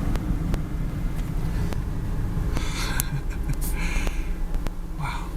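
Ford Mustang's 3.8-litre V6 running while driving, heard from inside the cabin as a steady low drone, with scattered irregular clicks.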